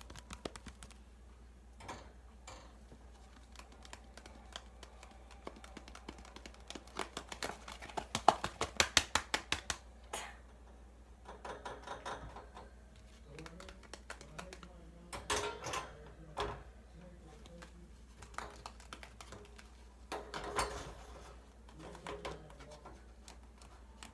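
Hands handling a small plastic-packaged item: scattered light taps and clicks, with a quick run of clicks about seven to ten seconds in, the loudest part.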